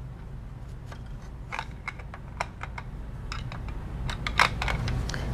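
Light, irregular clicks and taps of plastic toy parts as fingers work the small lever and lift platform of a Magforce control tower playset.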